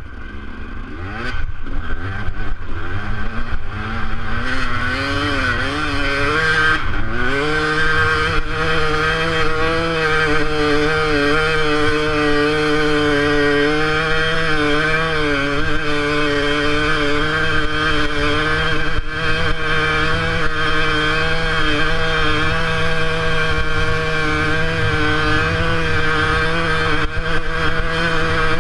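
2006 KTM 200 EXC two-stroke enduro motorcycle engine revving up, its pitch climbing in wavering steps over the first seven or eight seconds, then held at high revs with small rises and dips as the bike pulls through snow.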